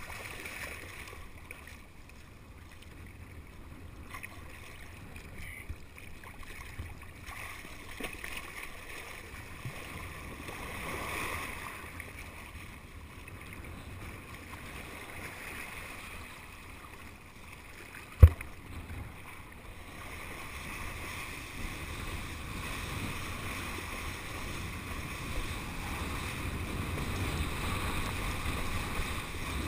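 Wind buffeting the camera's microphone and water rushing and splashing as a kiteboarder is pulled across the water, growing louder over the last third as the board picks up speed. One sharp knock about eighteen seconds in.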